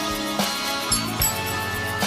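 Live rock band playing an instrumental passage without vocals: sustained chords over a bass line, with a few drum hits.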